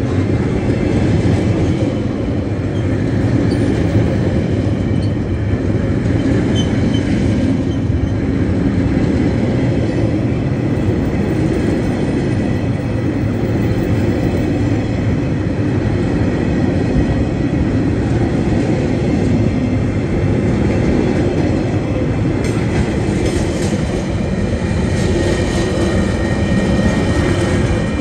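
Freight wagons of a passing train rolling by close at hand: a steady, loud rumble of steel wheels on the rails.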